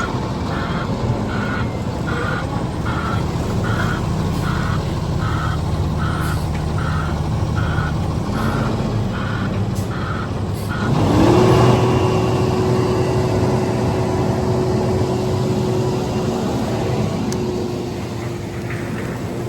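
Tri-axle dump truck backing up, its reversing alarm beeping a little more than once a second over the diesel engine. About halfway through the beeping stops and the engine revs up and holds at a high, steady pitch, easing off near the end.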